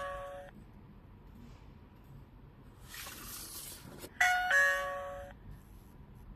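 TTLock doorbell's two-note ding-dong chime sounding as the call button is pressed: the second note of one chime fades at the start, and a full ding-dong rings again about four seconds in, a higher note then a lower one. A short hiss comes just before the second chime.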